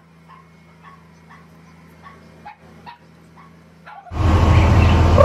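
A dog whimpering and yipping faintly, short calls every half second or so. About four seconds in, a loud, steady rushing noise with a low hum cuts in suddenly.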